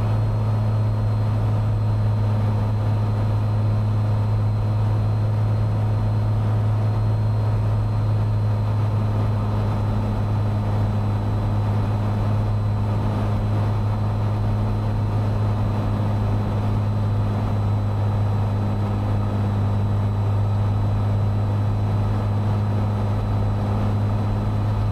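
Cessna 182 engine and propeller drone, heard steadily inside the cabin as a deep, even hum that does not change.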